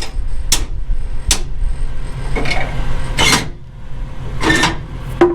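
A stuck steel handle on a semi-trailer being yanked and knocked against its latch: three sharp metallic clanks in the first second and a half, then several longer rattling scrapes as it is worked in its groove. The handle is jammed in the groove.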